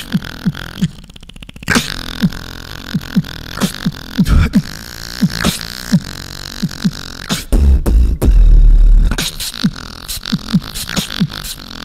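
Human beatboxing: a fast rhythm of vocal kick drums and clicking snares and hi-hats. A deep bass hit comes about four seconds in, and a longer, loud deep bass sound comes around eight seconds in.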